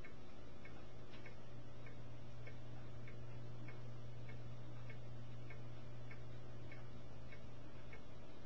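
A steady low hum with a faint, regular ticking, about two ticks a second.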